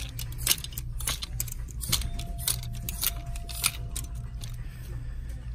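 Plastic clothes hangers clacking against each other and clicking along a clothing rack rail as shirts are pushed aside one after another, in quick irregular clicks.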